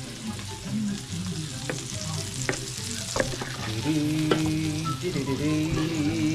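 Dong-geurang-ttaeng, Korean pork, vegetable and egg patties, sizzling in oil on a griddle. A metal spatula clicks and scrapes against the griddle a few times as they are turned.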